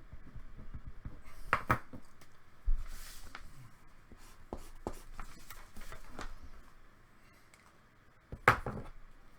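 Scattered small clicks and knocks from objects being handled, with a soft low thump under three seconds in and the loudest knock near the end.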